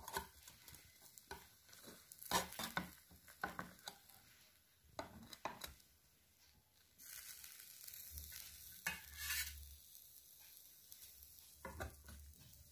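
Faint, scattered scrapes and clicks of a metal spatula against the plates of a hot electric sandwich maker as the toasted sandwiches are lifted out, with a soft hiss for a couple of seconds near the middle.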